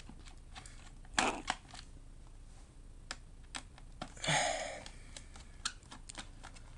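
Small tools and screws handled on a laptop's plastic case: scattered light clicks, a louder clack about a second in and a brief rustle about four seconds in.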